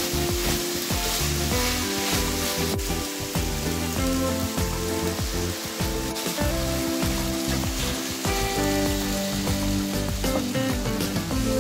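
Diced chicken and vegetables sizzling in a frying pan as they are stirred with a wooden spatula, under background music with held notes.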